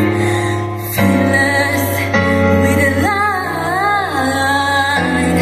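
Music with a woman singing into a microphone; about three seconds in she holds a long note that wavers up and down.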